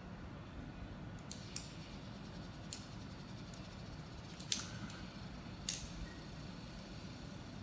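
Small metal pieces of a magnetic polar pen clicking as magnets and bars snap together, half a dozen sharp, irregular clicks. The loudest comes about halfway through and leaves a brief faint ring.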